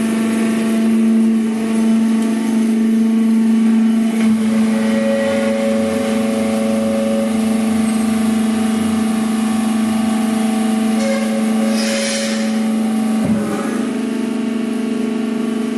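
Hydraulic drum press baler's power unit (electric motor and hydraulic pump) running with a steady hum. A higher whine comes and goes twice, and a short hiss sounds about twelve seconds in.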